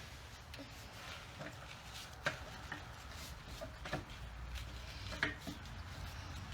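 A few scattered light clicks and knocks of metal tool and lug bolts being handled as a car wheel's lug bolts are threaded in one after another, over a faint low rumble.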